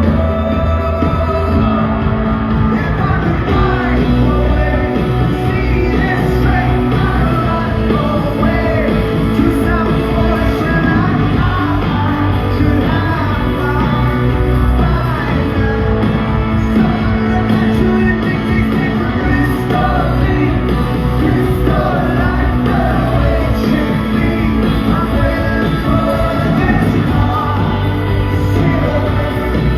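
Loud rock music: a band playing with a lead singer, the sound filling a large hall.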